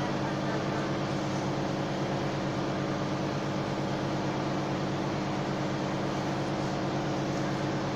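A steady machine hum made of several fixed low tones over a faint hiss, unchanging throughout.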